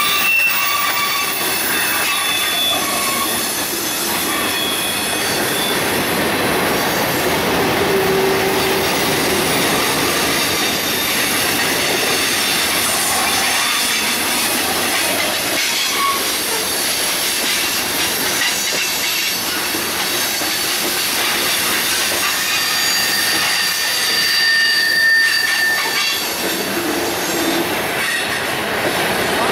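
Freight train cars rolling past on the rails, a steady loud clatter of wheels on track, with high-pitched wheel squeals that come and go, near the start and again about three-quarters of the way through.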